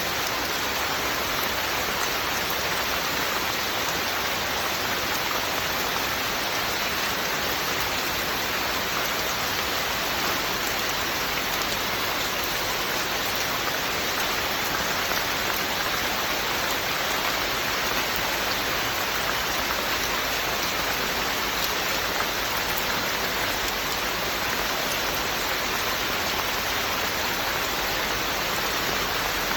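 Steady, even rainfall, a constant hiss of drops on surfaces with no thunder or pauses.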